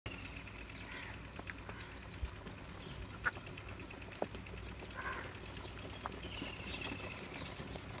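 House crows calling with short, harsh caws now and then, with a few sharp taps in between.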